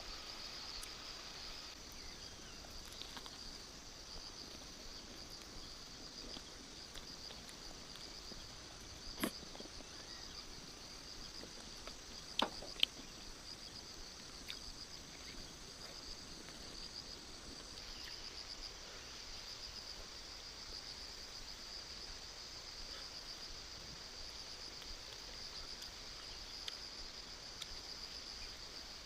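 Steady high-pitched insect chorus, a continuous trilling drone, with three sharp knocks or snaps: one about a third of the way in and two close together a few seconds later.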